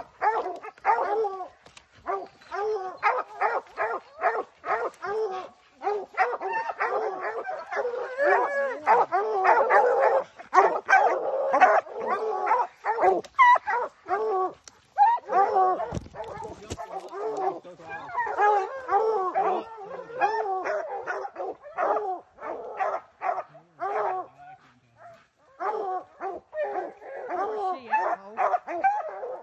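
Several bear hounds barking and baying together at a black bear up a tree, overlapping calls with brief lulls; this is the hounds barking treed, the sign that the bear is treed.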